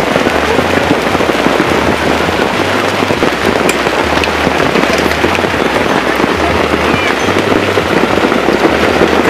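Heavy storm rain pelting down in a dense crackle, with gusts of wind buffeting the microphone in a low, uneven rumble.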